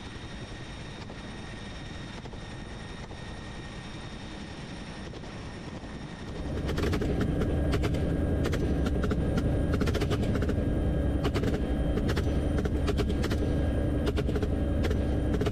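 Helicopter in flight, a steady rotor and turbine whine. About six seconds in it turns much louder, heard from the open cabin door with a heavy rumble, and rifles fire over it in rapid, repeated shots from the shooters in the doorway.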